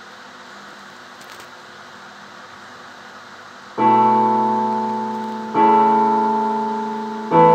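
Faint steady hiss, then background piano music begins about halfway through: three sustained chords struck roughly two seconds apart, each fading away.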